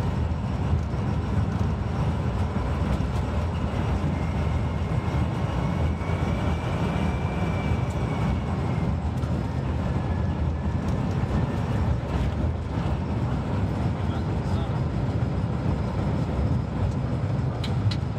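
V22 diesel shunting locomotive running steadily along light industrial track, heard from its front platform: a steady low engine drone mixed with wheel and rail noise and wind. A faint high squeal comes in about four seconds in and lasts several seconds.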